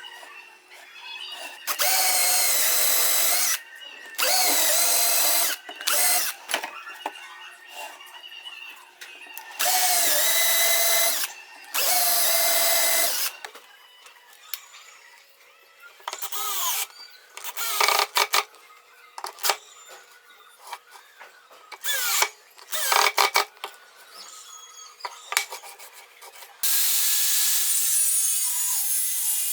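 An electric power tool running in short bursts: twice near the start, twice around the middle, and once longer near the end. Its motor whine dips as each burst starts and stops. Between the bursts there are clicks, knocks and rubbing from handling the work.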